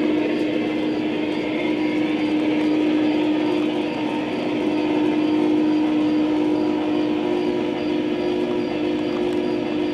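Large-scale garden railroad model trains running, their QSI onboard sound system giving a steady engine drone, with a faint rhythmic ticking of about three a second.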